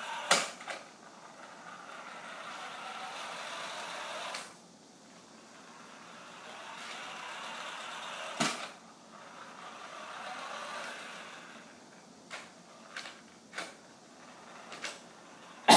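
A radio-controlled toy car's electric drive motor whirring in runs of a few seconds, with its tyres on a hard floor, stopping and starting between runs. Several sharp knocks come in between, the loudest just after the start and at the very end.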